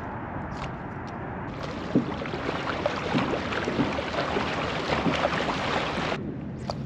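Steady rushing noise of wind and water around a kayak, with many small splashes and knocks against the hull; the hiss cuts off abruptly near the end.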